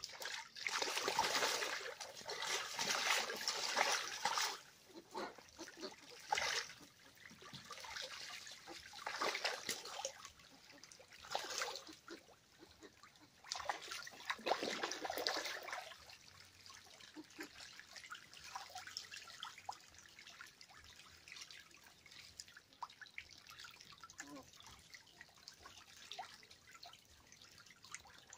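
Young black ducks bathing in a small pool, the water splashing and sloshing in uneven bursts, loudest in the first few seconds and again about halfway, then softer.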